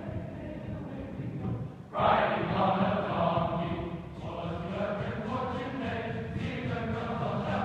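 Large massed choir singing. The sound dips briefly, then the full choir comes back in loudly about two seconds in.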